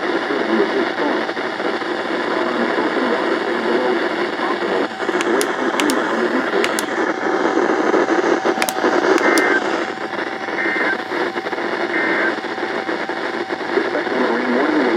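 Weak weather-radio broadcast buried in steady hiss and static on a radio receiver, with scattered clicks and pops. Three short, faint data-tone bursts about 1.5 seconds apart, after the middle, are typical of an Emergency Alert System (SAME) header coming through the poor signal.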